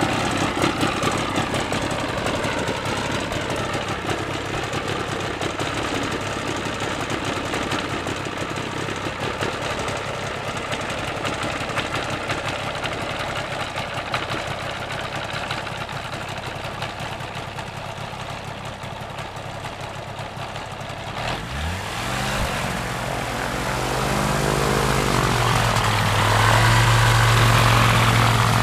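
Paramotor engine and propeller running with a steady rushing noise, then about three-quarters of the way through the engine revs up, its pitch rising, and holds a strong steady note that grows louder.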